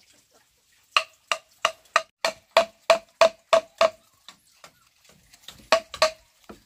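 A blade chopping into wood with a steady rhythm: about ten ringing knocks at roughly three a second, then a short pause and two or three more strokes near the end.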